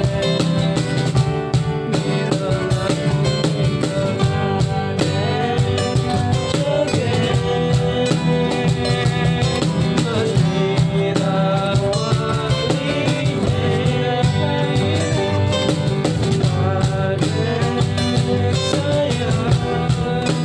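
A band playing a song, with guitars over a steady drum-kit beat.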